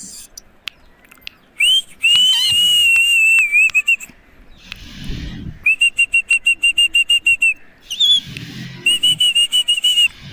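Pet parakeet whistling: a short rising-and-falling note, then a long wavering whistle, then two runs of quick repeated notes at about seven a second.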